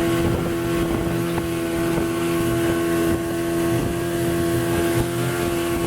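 Motorboat engine running steadily at an even pitch, with no change in speed.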